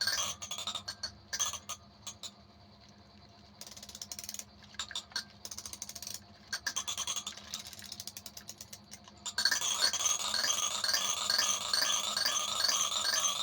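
Scattered clicks and rattling, then, about nine seconds in, a baby toy's electronic tune starts suddenly and plays on loudly as a quick, repeating run of beeping notes.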